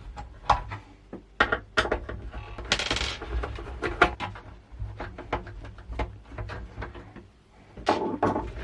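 Irregular sharp clicks and small knocks, with a short scrape about three seconds in, as the screws holding the monitor's VESA-mount stand are undone and the plastic stand is handled.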